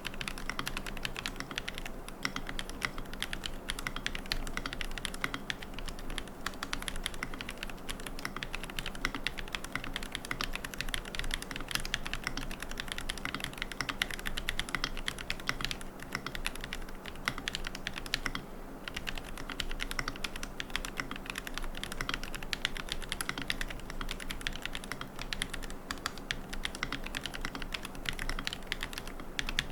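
Continuous typing on a QK75N mechanical keyboard with Gateron Moon Landing switches, MilkyWay Poker keycaps and a carbon plate with no foam: a dense, steady stream of key clacks.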